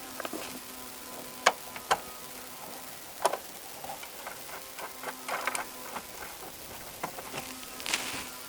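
Scattered sharp clicks and knocks of hand tools and car parts being handled as a taillight is worked loose, the three loudest in the first few seconds and a small cluster later, over a faint steady hum.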